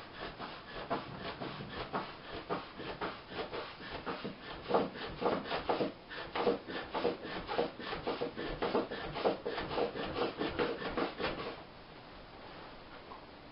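Rapid, rhythmic scraping of wood on wood, several strokes a second, as a fire is being got going by hand; it stops near the end.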